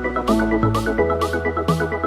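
Background music: an electronic track with a steady beat, held bass notes and a quick repeating plucked figure.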